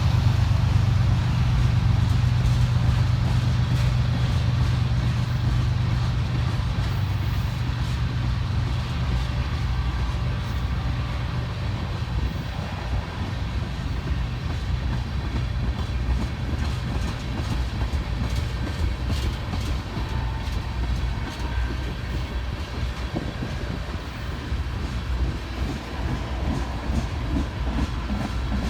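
Freight train cars rolling past, the wheels clattering steadily over the rails. A strong low hum at the start fades over the first several seconds.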